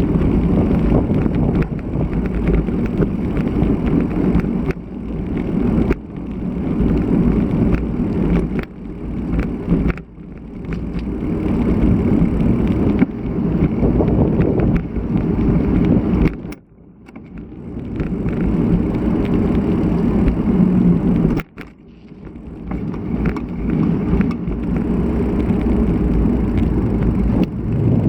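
Strong wind rumbling on the microphone of a bicycle-mounted action camera while riding in typhoon winds. It rises and falls in gusts, dropping off sharply twice in the second half.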